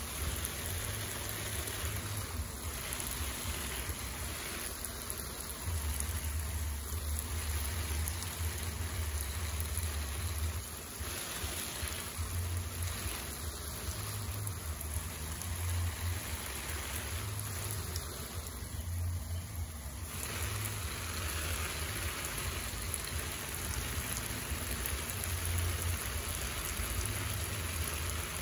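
Water spraying onto garden plants and leaves, a steady hiss that drops away briefly several times, over an uneven low rumble.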